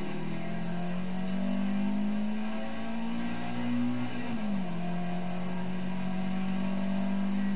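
Toyota 2TG 1600 twin-cam four-cylinder engine in a Starlet race car pulling under load: the note climbs slowly, drops sharply about four seconds in as with an upshift, then pulls again.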